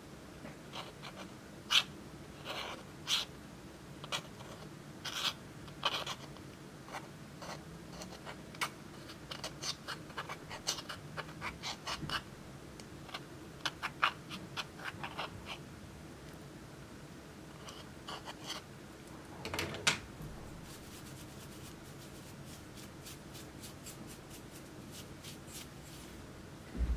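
Small metal scissor tips scraping and prying pressed eyeshadow out of a plastic palette's pans: irregular sharp clicks and scratches as the powder cake cracks and crumbles. Near the end a quicker run of faint, fine ticks comes as a makeup brush is swept over the emptied pans.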